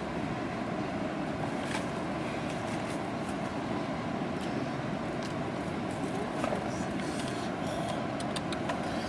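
Steady low rumbling background noise, with faint short clicks and rustles from the branches as bilimbi fruit is picked, more of them in the second half.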